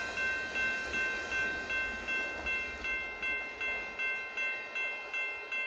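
Railroad grade crossing warning bell ringing steadily, about two and a half strokes a second, while the gates are still down after a freight train has passed. The faint low rumble of the departing train fades beneath it.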